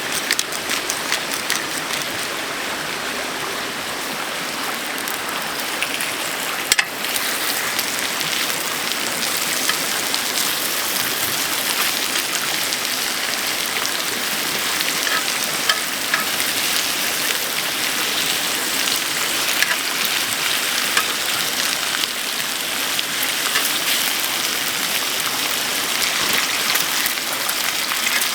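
Food frying in a hot pan: a steady sizzling hiss with small crackles, and one sharp click about seven seconds in.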